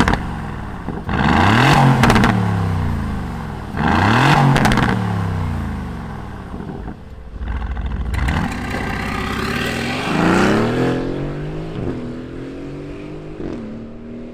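Aston Martin Vantage Roadster's 4.0-litre twin-turbo V8 firing up with a flare of revs, then blipped twice with the exhaust rising and falling. It then accelerates away, with two upshifts heard as sudden drops in pitch near the end, fading with distance.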